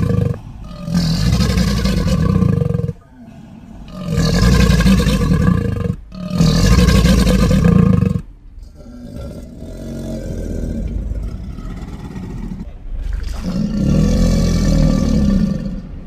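Giant movie crocodile creature roars: three loud, deep roars of about two seconds each in quick succession, then a quieter, longer growl, and another roar near the end.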